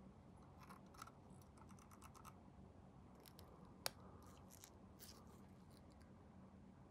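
Faint snipping and scratching of a small hand cutting tool on a plastic model kit's parts. There is one sharp click a little under four seconds in, over a low steady hum.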